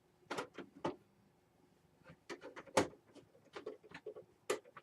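Computer hardware being handled: irregular light clicks and knocks in loose clusters, with a pause of about a second near the start.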